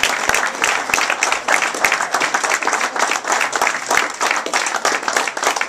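A small audience applauding steadily, many hands clapping.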